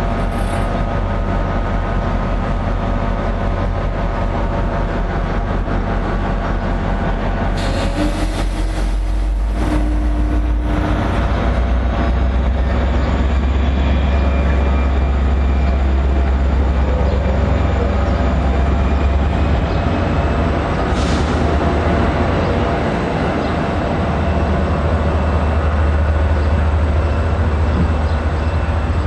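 New Jersey Transit diesel-electric passenger locomotive running at a station, with a steady low engine rumble. A brief burst of hiss comes about eight seconds in, and a thin rising whine follows.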